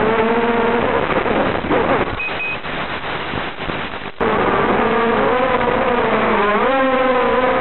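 Brushless motors of a ZMR250-frame FPV quadcopter on a 3S battery, whining with the pitch wavering as the throttle changes. The whine turns lower and rougher for a few seconds and cuts out briefly about four seconds in. It then returns louder and steadier, with a quick rise in pitch near the end.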